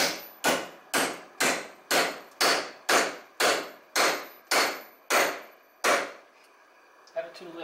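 Hammer striking a metal bracket clamped in a bench vise, bending it over: about a dozen sharp metallic blows, roughly two a second, each with a short ring, stopping about six seconds in.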